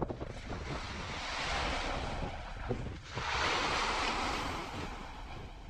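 Sea waves washing onto a beach, the surf swelling up and falling away twice, with wind buffeting the microphone.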